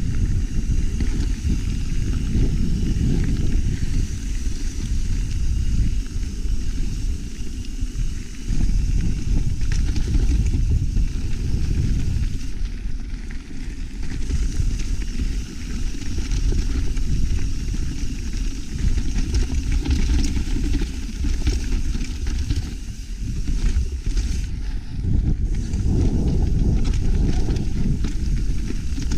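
Wind rumbling on a helmet- or bike-mounted GoPro's microphone while riding a mountain bike down a dirt trail, with tyre noise and small rattles from the bike. The level dips briefly a few times.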